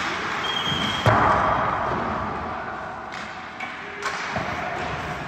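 Ice-hockey practice in a rink: one sharp crack of a puck being struck about a second in, the loudest sound, echoing through the arena, with a lighter knock near four seconds over a steady hiss of rink noise.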